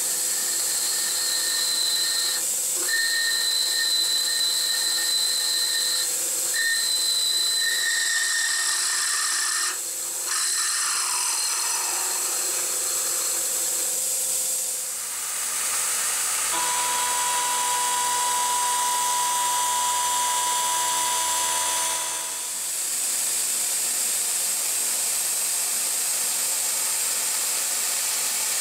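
CNC milling machine cutting holes in a brake rotor's hub. A steady hiss runs throughout, with two high steady tones from the cut in the first ten seconds and a steady pitched whine from about 16 to 22 seconds in.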